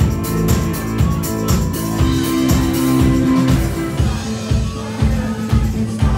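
Live rock band playing an instrumental passage with electric guitars, bass and drum kit to a steady beat. About four seconds in the cymbals drop away, leaving a kick drum pulsing about twice a second under a held bass note.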